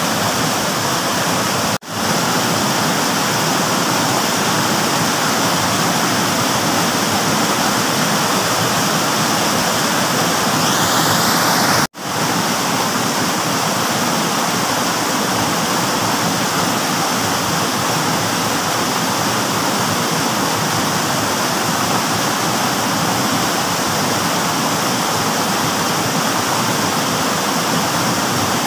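Steady rushing of water pouring over a small rocky cascade in a stream, cutting out for an instant twice.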